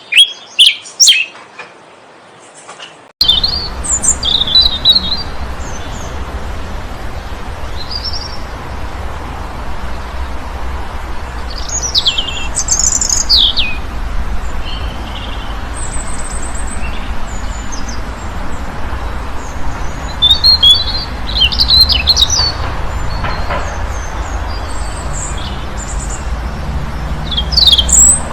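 Small birds chirping: short high calls and quick downward-sweeping notes, several in quick runs, over a steady low background rumble. The recording changes about three seconds in, and from then on the background noise is louder.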